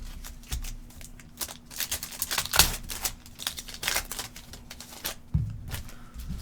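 Trading card packs, wrappers and cards being handled on a table: irregular crinkling and clicking, with a couple of soft thumps.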